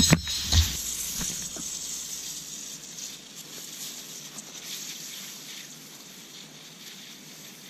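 An anvil slams onto an aerosol can of Silly String: one heavy impact, then a few lighter thuds within the next second or so, followed by a hiss that slowly fades over several seconds as the crushed can sprays out.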